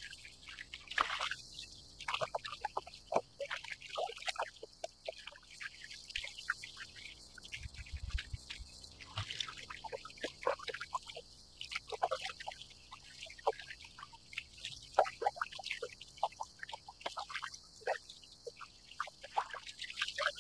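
Small waves lapping and dripping against a plastic kayak hull in quick, irregular little splashes, over a steady high-pitched cicada chorus.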